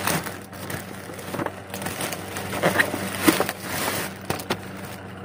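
Plastic courier pouch being pulled open and handled, with the bubble-wrapped package inside drawn out: irregular crinkling and rustling of plastic with short crackles.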